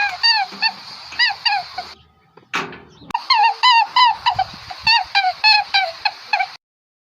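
A rapid string of short, high-pitched animal calls, several a second, with a brief break about two and a half seconds in and the calls cutting off abruptly about six and a half seconds in.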